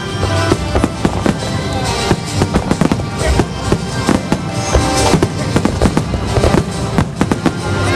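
Aerial fireworks shells bursting in rapid succession, many sharp bangs a second, with music playing throughout.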